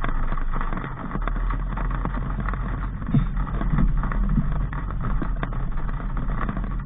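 Daihatsu Sigra driving on the road: steady engine and road rumble, with a few low thumps about halfway through.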